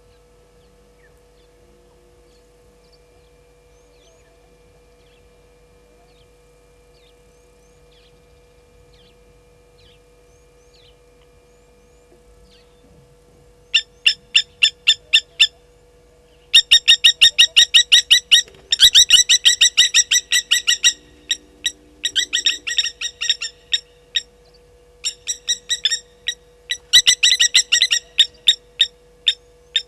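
Blacksmith lapwings giving alarm calls at a slender mongoose: loud runs of short, sharp notes repeated several times a second, starting about fourteen seconds in and going on in bursts with brief gaps. Before that it is quiet except for a few faint high chirps.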